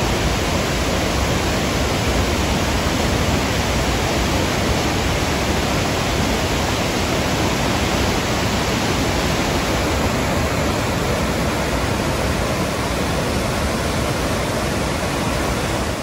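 Waterfall cascading over sloping rock ledges: a steady, full rush of white water.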